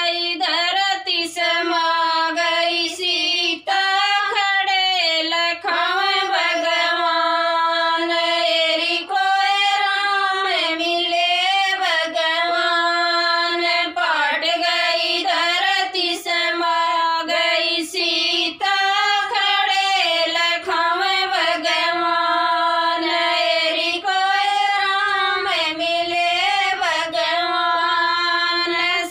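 Women's voices singing a Haryanvi devotional bhajan in unison, unaccompanied, a flowing melody broken only by brief pauses between lines.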